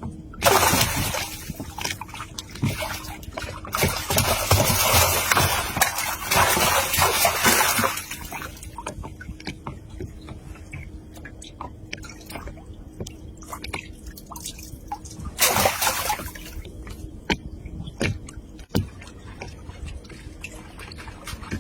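Water splashing and sloshing in several bursts: one about a second in, a longer spell in the middle, and a short one later, with scattered drips and clicks between them.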